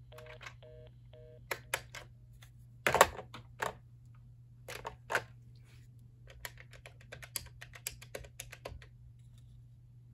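Cortelco Patriot II desk phone handset earpiece sounding the short repeating two-note beeps of a busy/reorder signal for about the first second and a half, over a steady low 60-hertz buzz. Then comes a string of clicks and knocks as the plastic handset is handled, the loudest about three seconds in.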